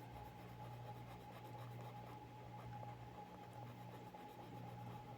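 Faint scratching of coloured pencil strokes on paper, over a steady low electrical hum.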